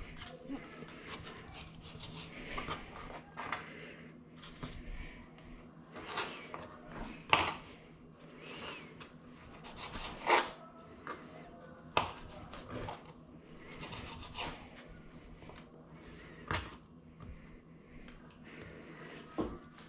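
Kitchen handling noises: scattered knocks, clicks and rubbing of utensils and dishes being moved about, over a steady low hum.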